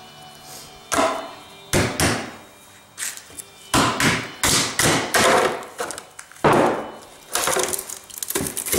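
Claw hammer knocking on a fiberglass part and its mold to break it free, a series of irregular sharp knocks and cracks, then the cured fiberglass part scraping and cracking as it is pulled out of the mold near the end.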